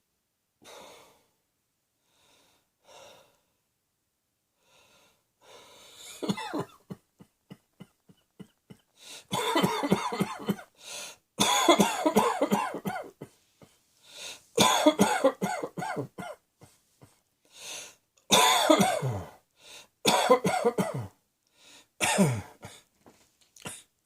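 A person coughing in repeated fits, a few faint breaths at first, then loud, harsh coughing bouts from about six seconds in, with short gasps between them.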